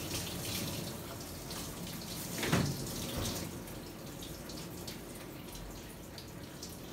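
Shower sprayer water running over a wet dog's coat and splashing and draining in a stainless-steel grooming tub as shampoo is rinsed out, with a brief louder rush about two and a half seconds in.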